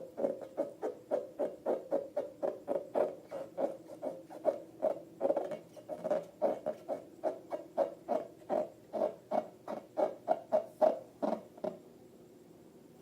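Slime being squished and worked by hand, a rapid regular run of short wet squelches and clicks, about three a second, that stops near the end.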